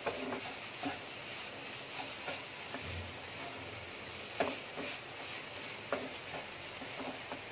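Wooden spatula stirring grated coconut and jaggery in a pan over a gas flame, with a steady sizzle as the jaggery melts and a sharp tap of the spatula against the pan every second or two.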